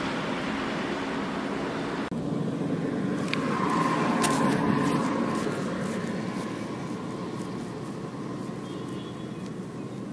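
Roadside traffic noise: a motor vehicle passes close by, its sound swelling about four seconds in and then slowly fading away.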